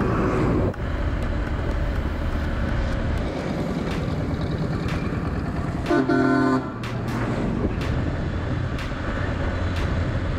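Steady running noise of a motorbike on the road, with a vehicle horn honking once, for under a second, about six seconds in; the honk is the loudest sound.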